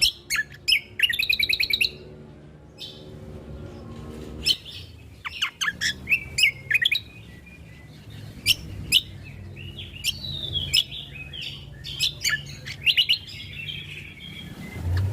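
Cucak kombo (kecial kombo) songbird singing a varied, busy song of sharp chirps and whistled notes, with a fast rattling trill about a second in. A faint steady low hum runs underneath.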